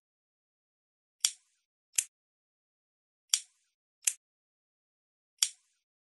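Lighter clicking repeatedly: short, sharp clicks in pairs about 0.7 s apart, a new pair roughly every two seconds, five clicks in all.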